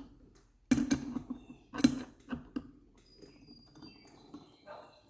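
Adjustable wrenches clicking and knocking against the metal fittings of a surface cleaner's swivel as it is tightened: several sharp metallic knocks in the first half, then a few faint ticks.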